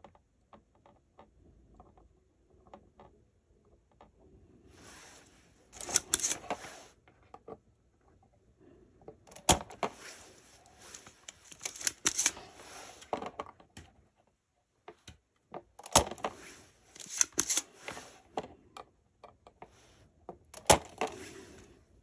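Small hand tools and parts being worked on a furnace circuit board during a diode replacement: bursts of scraping and rattling broken by a few sharp clicks.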